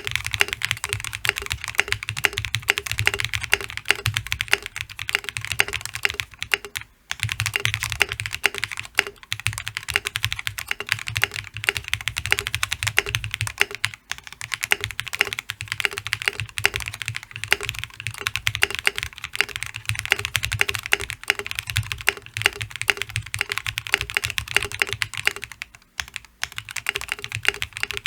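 Continuous fast typing on a Gray Studio Space65 custom mechanical keyboard with lubed Durock POM linear switches on an FR4 plate with case foam, a dense run of keystrokes broken by short pauses about 7, 14 and 26 seconds in.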